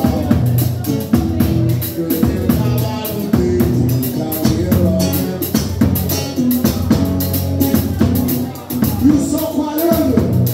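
Live band playing: a drum kit keeps a steady beat with regular cymbal hits while a man sings lead.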